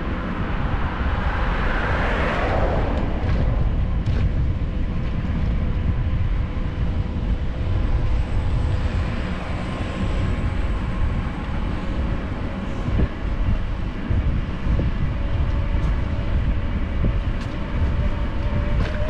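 Road traffic: a steady low rumble, with a vehicle passing about two seconds in.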